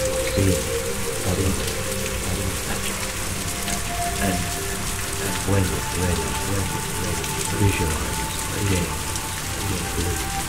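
Steady rain sound, an even hiss, with a few faint held musical tones underneath.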